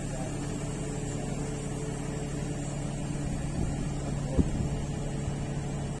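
A machine running steadily with a low hum, with one sharp knock about four and a half seconds in.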